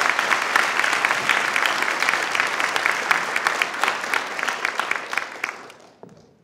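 Audience applauding, a dense clatter of many hands clapping that thins out and dies away near the end.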